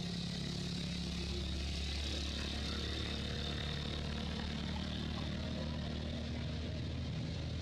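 A steady low hum with a faint hiss above it, unbroken, with no distinct knocks or calls.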